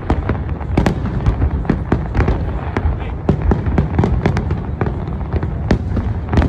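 Aerial fireworks bursting in rapid succession, several loud bangs a second over a continuous low rumble of overlapping booms.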